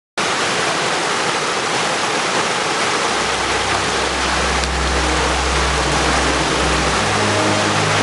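Mountain stream rushing over rocks and a small waterfall: a steady, even hiss of water. Low, held music notes come in about three seconds in and build near the end.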